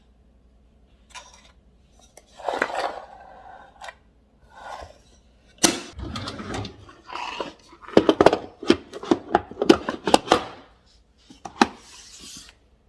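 Small accessories being handled and set into the compartments of a bamboo organizer: scattered clicks and knocks, with a few short bursts of rustling. The clicks come thickest in the second half.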